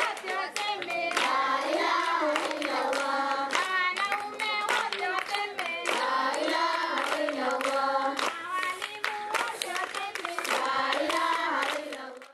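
A group of children singing together and clapping along; it stops abruptly near the end.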